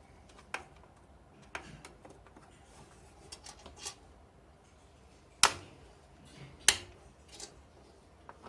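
Plastic clicks and taps from handling a RAM module at a motherboard's DIMM slots and their latch clips: several light clicks, then two sharp, loud clicks a little past halfway, about a second apart.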